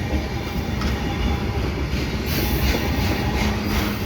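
Heavily loaded freight-train flatcars carrying wind-turbine motor housings roll past on the rails: a steady rumble of wheels on track, with more rattle and hiss from about halfway through.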